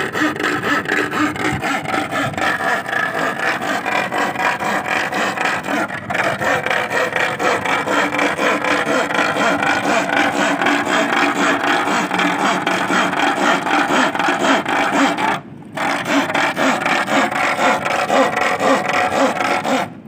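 Rapid, continuous metallic rattling and scraping of a thin iron rod worked against a rusty curved sheet of metal held in shallow water, with one brief break about fifteen seconds in. The racket is made to drive sea worms (sasing) up out of their burrows in the sand.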